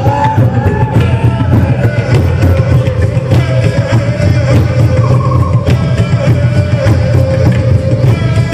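Loud live rock music played through a PA: heavy bass and drums with a wavering sung or lead line over it.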